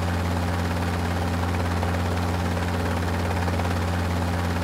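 Helicopter with a ducted tail fan hovering low overhead, a steady low drone with an even rushing hiss.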